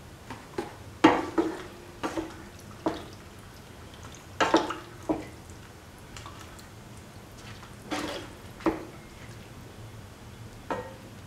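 Slotted spatula stirring a watery chicken liver and carrot mixture in a pan, knocking and scraping against the pan in short clusters every second or two, with a brief ring after some of the louder strikes.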